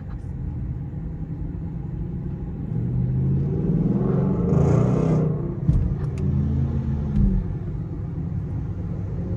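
Car engine and road rumble heard from inside the cabin in slow traffic, swelling for a few seconds in the middle with a brief hiss, then settling back to a steady low rumble.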